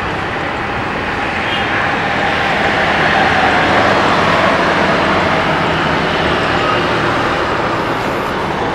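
Jet airliner engine noise, a loud rush that swells to a peak about three to four seconds in and then slowly eases as the aircraft passes.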